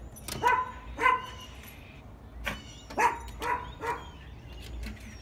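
Dog barking: two short barks about half a second apart, then after a pause a quick run of four.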